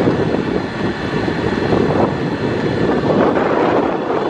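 Pier train running along its track: a steady noise of its motor and wheels, with a faint high whine held above it.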